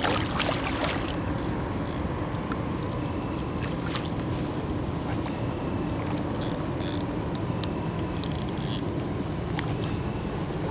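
Hooked grass carp splashing and stirring the water at the surface as it is drawn in on the line, over a steady background hiss. The splashing is strongest right at the start, with small drips and clicks after.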